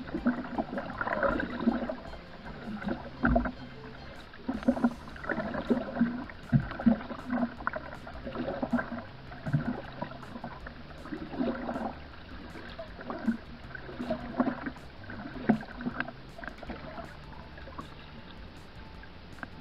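Paddle strokes from a homemade cardboard paddle pulling through the water of a cardboard boat, splashing and gurgling irregularly about once a second. A few dull knocks come between the strokes.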